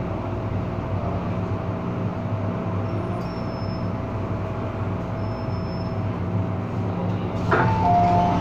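Inside an MTR M-Train car: the electric train's steady running hum as it slows to a stop at a platform. Near the end the doors open with a sudden rush of noise and a two-note door chime sounds.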